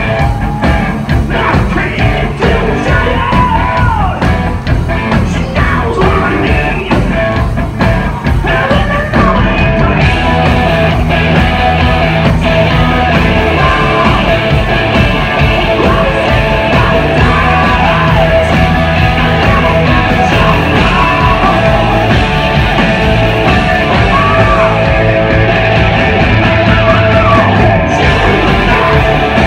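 Hard rock band playing live and loud: distorted electric guitars, bass and drums under a shouted, yelled lead vocal. The band gets fuller and more even about a third of the way in.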